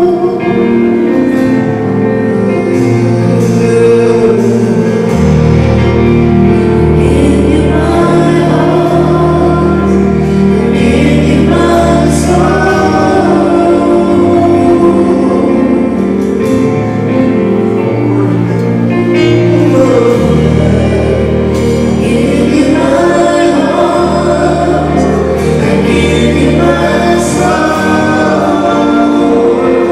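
Gospel worship music: voices singing a slow melody over sustained chords, with a low bass line that changes every few seconds.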